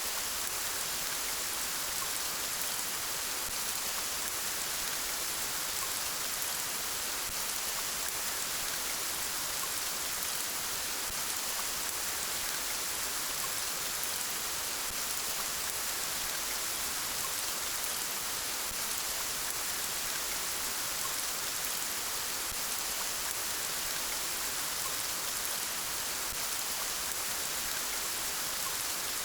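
Steady rain falling, an even hiss with a patter of drops on surfaces that does not change.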